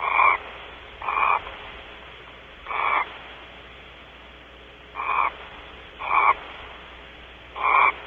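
Six short animal calls, each about a third of a second long, coming at uneven intervals over a steady hiss.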